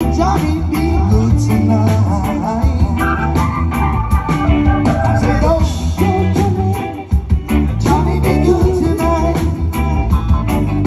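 Live band music: electric guitar and keyboard over a steady bass and beat, with a singer's voice over it. The level drops briefly about seven seconds in.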